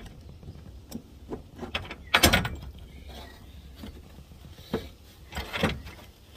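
Metal hand tools and small parts clinking and clattering as they are handled, with a loud clank about two seconds in and a few more knocks near the end.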